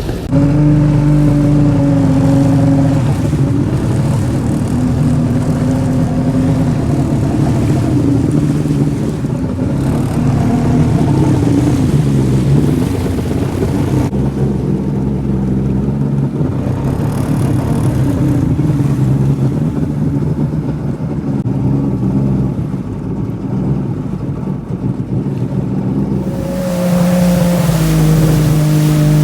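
1998 Kawasaki STX-1100 jet ski's three-cylinder two-stroke engine running under way, its pitch rising and falling with the throttle.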